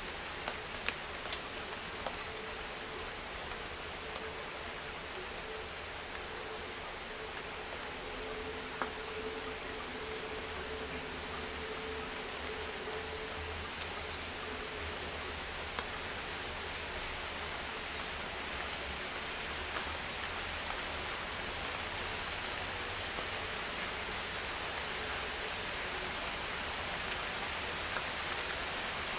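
A steady, even hiss of outdoor ambience with a faint low hum for about the first half. A few sharp clicks come near the start, and a brief run of high, thin bird calls comes about two-thirds of the way through.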